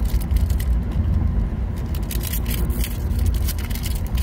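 Foil Pokémon booster pack wrapper crinkling in a run of irregular sharp rustles as it is torn open by hand, over a steady low rumble in the car.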